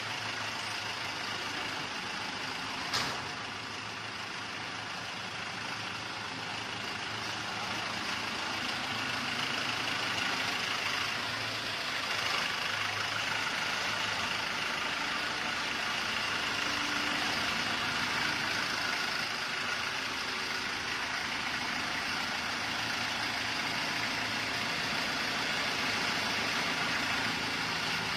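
Shangchai 12V135BZLD1 V12 diesel generator set running steadily. One short click about three seconds in; the sound grows slightly louder a few seconds later, then holds steady.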